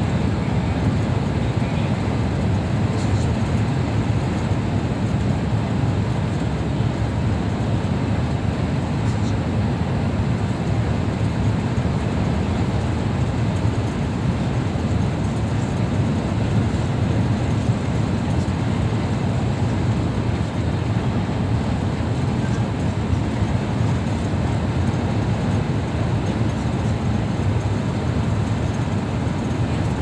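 Steady low rumble of a road vehicle driving at motorway speed, heard from inside the cabin: tyre and engine noise through the closed window.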